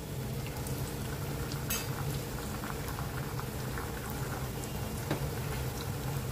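Hot oil bubbling and sizzling steadily as maida-batter-coated roti cones deep-fry in a kadai, with a few faint ticks and scrapes as a slotted spoon turns them.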